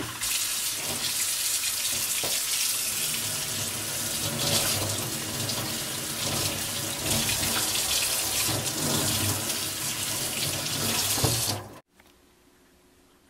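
Kitchen tap running into a stainless steel sink, water splashing as mackerel fillets are rinsed by hand under the stream. It stops suddenly near the end, leaving only faint room tone.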